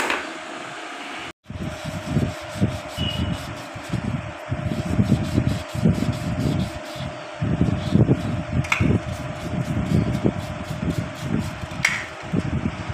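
Steady hum of a fan with irregular low rumbling over it, like wind or handling noise on a phone's microphone held close. The sound drops out briefly about a second and a half in.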